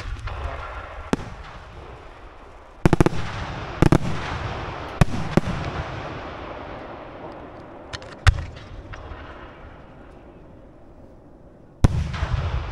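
Aerial fireworks bursting: sharp bangs, a quick volley of several about three seconds in, single bangs around four, five and eight seconds, and a strong one near the end. Each is followed by a fading crackle and rumble.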